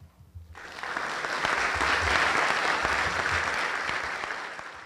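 Lecture audience applauding. The clapping starts about half a second in, swells over the next second, then tapers off near the end.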